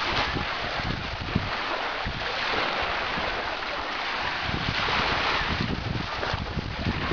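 Wind buffeting the microphone in irregular low gusts over a steady rushing hiss of wind and surf, which swells about halfway through.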